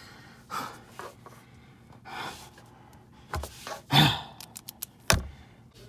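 A person gasping and sighing in short breathy bursts, the loudest about four seconds in, a sigh that falls in pitch. Near the end come a few quick sharp clicks and one louder click.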